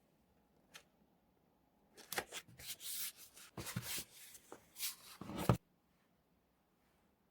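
Paper journaling materials being handled: one soft click, then irregular rustling and rubbing strokes for a few seconds that stop abruptly.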